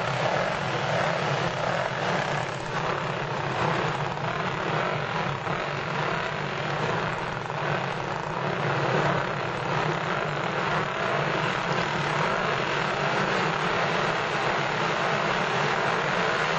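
Vintage racing motorcycle engines running in a steady drone with small swells.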